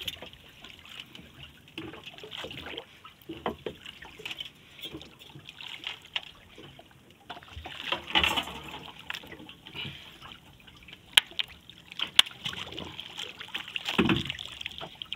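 Sea water sloshing and trickling around a small outrigger fishing boat, with scattered sharp knocks; the two loudest knocks come about a second apart, a little past the middle.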